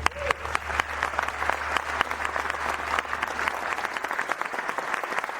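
Audience applauding: dense, steady clapping that starts right as the song ends and keeps up at an even level.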